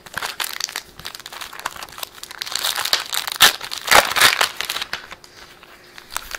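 Foil trading card pack wrapper crinkling and crackling as hands tear it open and crumple it, loudest in the middle.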